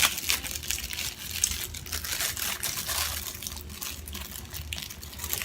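Plastic packaging crinkling and rustling as it is handled, with irregular small clicks and taps.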